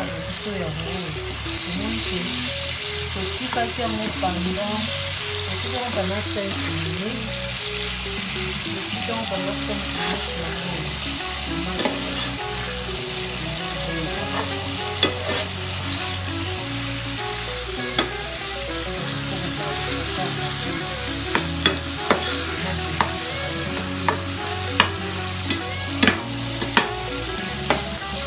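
Small dried fish (ndakala) frying with onions and peppers in hot oil in a pan, sizzling steadily while a spatula stirs them. Sharp clicks of the spatula against the pan come more often in the second half.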